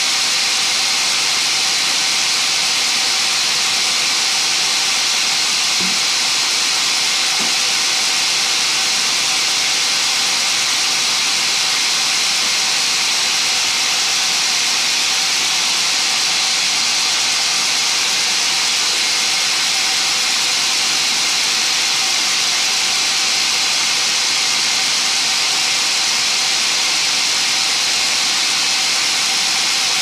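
Sawmill band saw running freely, not cutting, with a steady, loud hiss and a constant hum under it; a couple of faint knocks about six and seven seconds in.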